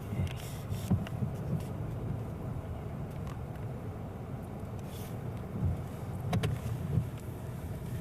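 A car engine running steadily, with a few light clicks and knocks.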